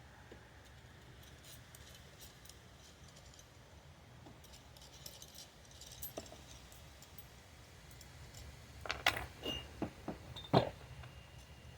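Light metallic clinks and taps of hand tools on metal, scattered at first, then a cluster of louder, briefly ringing clinks about nine to ten and a half seconds in.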